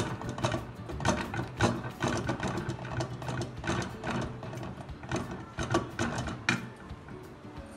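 A wooden spoon stirring thick mango pulp in a steel pot, knocking and scraping against the pot's sides and base in an irregular run of clicks, several a second, over a low steady hum.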